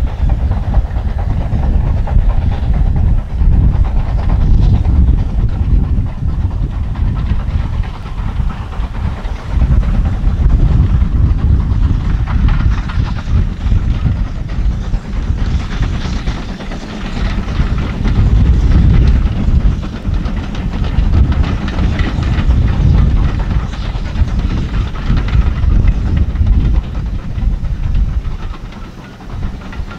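A steam locomotive working a train of coaches past, its exhaust and the running of the train heard as a continuous rumble that rises and falls.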